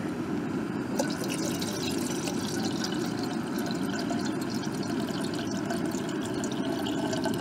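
Water pouring from a plastic bottle into a small metal camping kettle, a steady stream filling it. There is a light knock about a second in.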